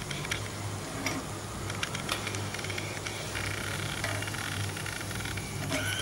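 Breaded fish cutlets shallow-frying in hot oil in a pan, making a steady sizzle with a few light clicks, over a low steady hum.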